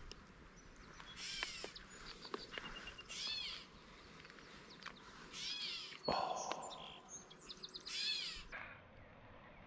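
A bird calling from the streamside brush: a short call with many arched overtones, repeated four times about every two and a half seconds. Just after six seconds there is a sharp tick and a brief rush of noise.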